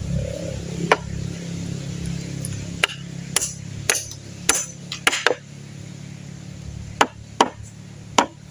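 Claw hammer driving nails into a wooden plank: about ten sharp, irregular strikes, with a pause of over a second between them in the middle.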